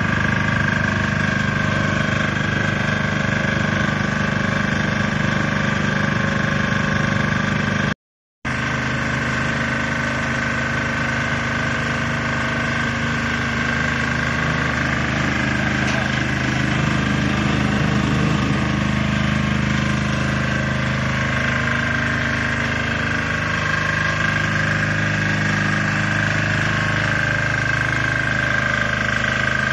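Trailer-mounted asphalt recycling machine running, its burner firing into the heating drum with a steady whine and an engine running beneath it. The sound cuts out for a moment about eight seconds in.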